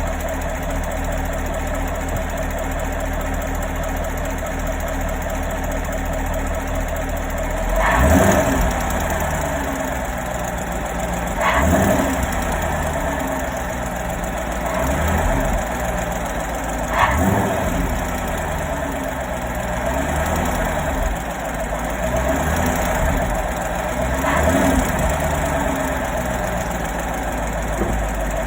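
2017 Camaro's 6.2-litre LT1 V8 idling warm with a ticking noise, which the owner hears only at warm idle and traces to the rear driver's side of the engine, near the oil filter and pump. About 8 seconds in, the engine is revved briefly and then drops back to idle, and this happens several more times.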